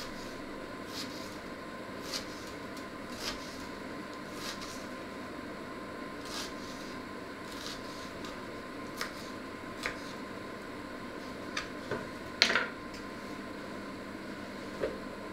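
Knife chopping an onion on a wooden cutting board: short, irregular taps of the blade on the board, roughly one a second, over a steady background hum, with a louder clatter about three quarters of the way through.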